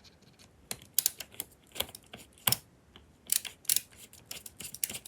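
Metal parts of an Audix D2 microphone clicking and tapping against each other as they are twisted and seated by hand during reassembly. The clicks come irregularly, loud and close together in places.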